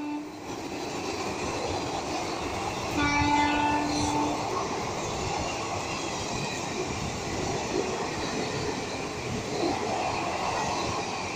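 Passenger train coaches running past on the track, a steady rumble with wheel clatter. A train horn sounds once about three seconds in for about a second and a half, and the end of an earlier horn blast dies away at the very start.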